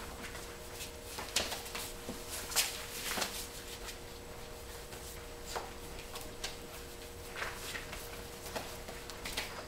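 Five-week-old Pointer puppies scuffling at play on a paper-covered floor, with irregular scuffs, taps and rustles from their paws and toys, over a faint steady hum.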